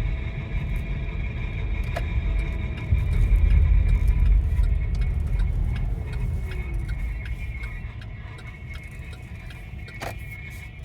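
Chevy Bolt EV driving with a grinding scrape from a small rock caught in the brake assembly: short regular ticks about twice a second as the wheel turns, over tyre and road rumble. The rumble is loudest a few seconds in and fades in the second half, leaving the ticking plainer.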